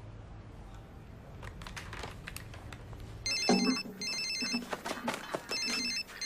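Telephone ringing with an electronic trilling ring, starting about three seconds in: two short rings back to back, a pause, then two more. Before it, only a low steady hum and a few faint clicks.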